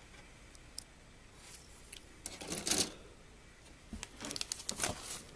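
Handling noise from a plastic model kit: small clicks and rustles as the plastic parts tree and packaging are moved, with a louder rustle a little over halfway through and a quick run of clicks and crinkles near the end.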